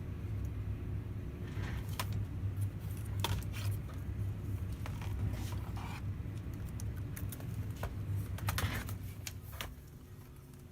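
Scattered light clicks and small metallic rattles of laptop parts and screws being handled, over a steady low hum that drops away near the end.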